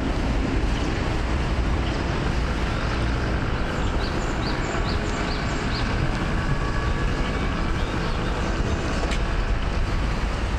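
Steady outdoor street ambience: a low rumble of road traffic mixed with wind on the microphone. About four seconds in comes a quick run of five short, high chirps.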